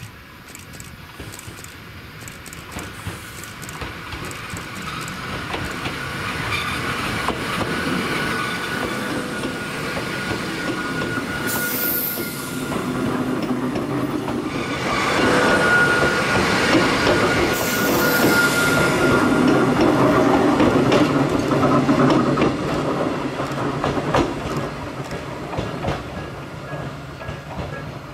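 Hakone Tozan Railway electric train, car 103, approaching and passing close by, its wheels running over the rails. A high, steady wheel squeal rings through the passing, with brief shriller squeals twice. It is loudest about halfway through as the car goes by, then fades.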